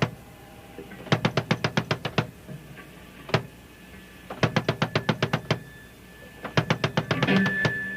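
Drum kit playing alone in a band's demo recording: three quick runs of rapid drum strokes, about nine a second and roughly a second long each, with single hits in the pauses between. A steady high guitar feedback tone comes in near the end.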